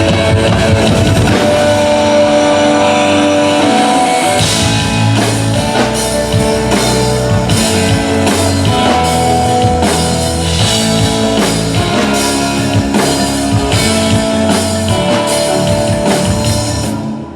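Live band playing rock music with guitar and drum kit, with steady drum hits throughout. The music breaks off near the end.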